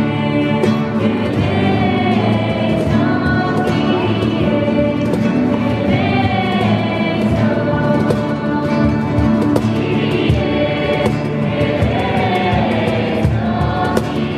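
Church choir singing a hymn together, accompanied by several strummed acoustic guitars keeping a steady rhythm.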